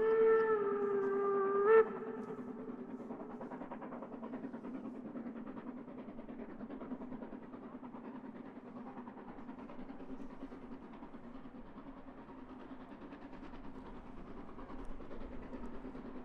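Narrow-gauge steam locomotive whistle giving one long blast of about two seconds, which cuts off with a brief upward flick in pitch. After it comes the fainter, steady sound of the steam locomotive working in the distance.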